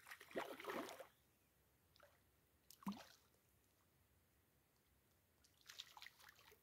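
A hooked rudd splashing at the surface as it is drawn in to the bank: faint splashing in short bursts at the start and again near the end, with a single plop about three seconds in.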